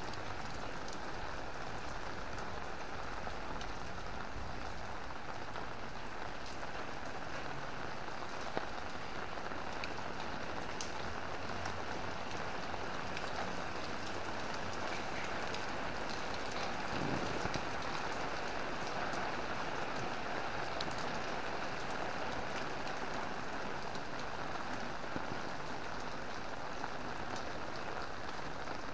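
Steady rain falling, with scattered sharp drop ticks close by. There is a brief louder swell about seventeen seconds in.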